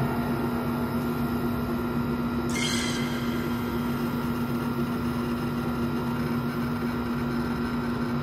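Steady, eerie background music drone of held low tones, with a brief hissing swell about two and a half seconds in.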